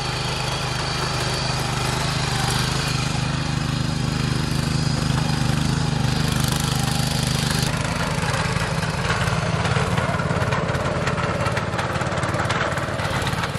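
Ruris 731k ACC power tiller's engine running steadily while it pulls a single plow through the soil.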